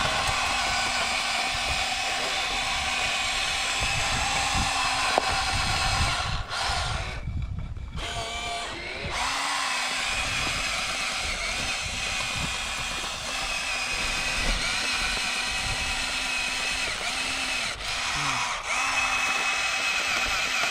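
Small electric motors and gearboxes of radio-controlled construction models whining steadily as they run, with a short break about seven seconds in and small shifts in pitch as the load changes.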